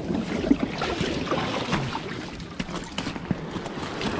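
Seawater sloshing and splashing around a large flapper skate as it is handled at the water's edge, with scattered small splashes and slaps.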